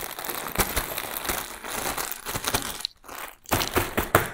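Clear plastic plant sleeve crinkling as a wrapped potted plant is handled: a dense run of crackles with a short lull about three seconds in.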